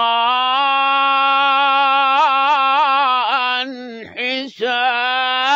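A man's solo voice chanting a Quran verse in melodic tajweed recitation. He holds one long ornamented note for nearly four seconds, with wavering turns toward its end, breaks off briefly about four seconds in, then carries on.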